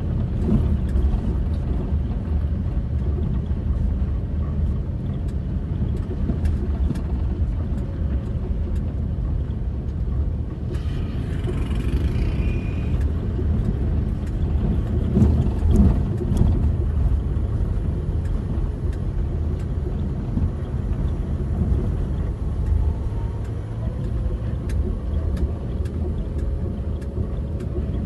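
Car driving along a rough gravel road, heard from inside the cabin: a steady low rumble of engine and tyres, with scattered small knocks and rattles and a heavier bump about halfway through.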